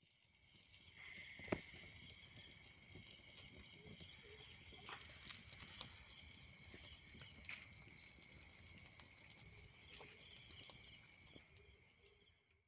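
Faint, steady high-pitched chirring of insects, with scattered small clicks and one sharp click about a second and a half in.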